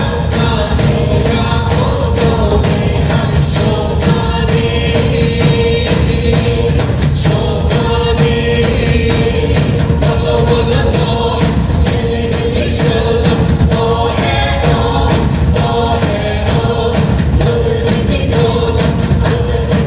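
A group singing a traditional Naga folk song in chorus over a steady held note, amplified through a stage sound system.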